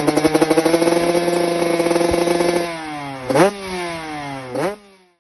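Motorcycle engine running at a steady speed. The revs drop, then it is blipped twice, each a quick rising and falling rev, and the sound cuts off just before the end.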